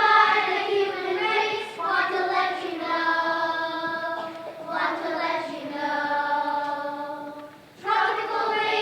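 A group of young children singing together, holding long notes, with a brief break between phrases near the end.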